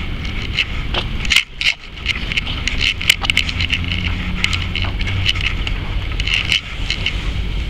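Wind rumbling on the microphone of a handheld camera carried on foot: a steady low rumble that drops out briefly about one and a half seconds in, with many scattered clicks and taps over it.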